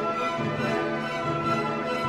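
Background orchestral music with bowed strings, held notes moving slowly from one to the next.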